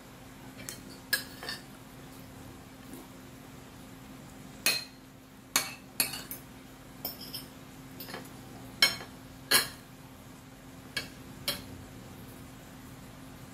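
Metal spoon and fork clinking against a ceramic dinner plate while eating. More than a dozen short, sharp clinks come at uneven intervals, the loudest around the middle.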